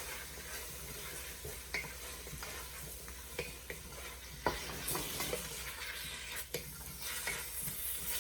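Vegetables and chopped garlic sizzling in a skillet over low heat, with a utensil clicking against the pan every second or so as they are stirred.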